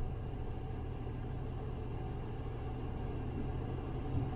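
Steady low rumble of a Dacia Jogger's engine and tyres while it is driving.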